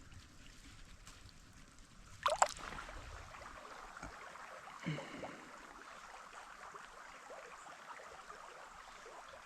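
Creek water running in a steady hiss, broken a little over two seconds in by a short, sharp knock or clatter.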